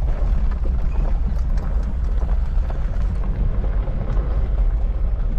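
Jeep rolling along a gravel road, a steady low rumble of engine and tyres with scattered small clicks of gravel under the wheels, heard from inside the cab with the window open.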